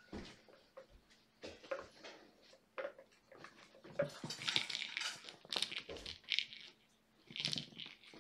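Irregular rustling, crinkling and light tapping from kittens scampering and pouncing on toys, in short bursts that cluster together a few seconds in and again near the end.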